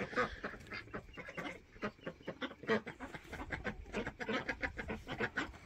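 Chickens clucking, a run of many short calls.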